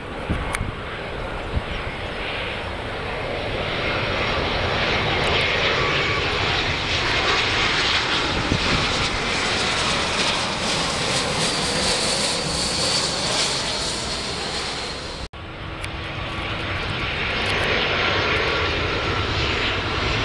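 Turbofan engines of British Airways Airbus A320-family twin-jet airliners on final approach: a rumble and whine that swell as the plane passes low overhead. About fifteen seconds in the sound cuts off abruptly and a second airliner's approach noise builds.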